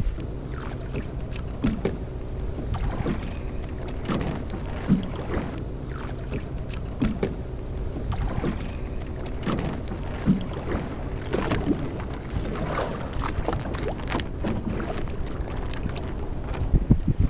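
A boat under way: a steady low engine rumble with wind on the microphone and the wash of water.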